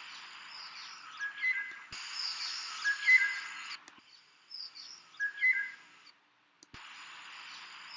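A field recording of black-hooded oriole calls, played as a few spliced segments that start and cut off abruptly. Each segment has short clear whistled notes and higher chirps over a background hiss.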